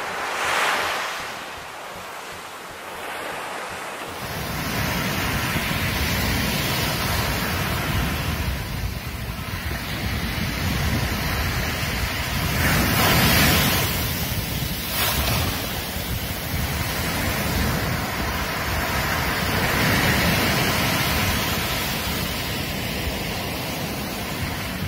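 Ocean surf breaking and washing up a sandy beach in repeated surges. From about four seconds in, wind rumbles on the microphone.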